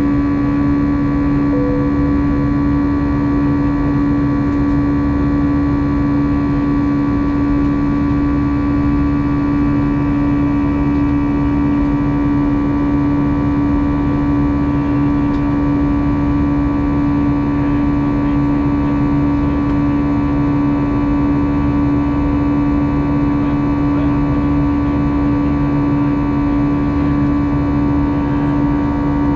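Cabin drone of an Airbus A320-214 in flight, its CFM56-5B turbofans and airflow making a steady rumble with a strong, even hum and several fainter steady tones above it.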